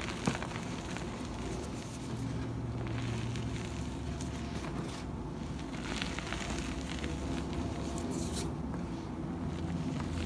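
Hands squeezing and crumbling charcoal-loaded gym chalk: a dry, crackling crunch of powder and small chalk chunks breaking between the fingers, with a sharp crack just after the start.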